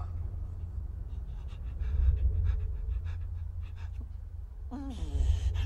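A steady low hum with faint scattered clicks, and about five seconds in a brief voice sound that bends in pitch.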